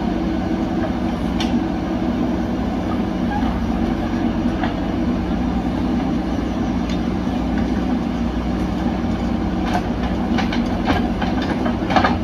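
Backhoe loader diesel engines running steadily under digging work, with a few clanks and scrapes of the steel bucket working the soil, most of them near the end.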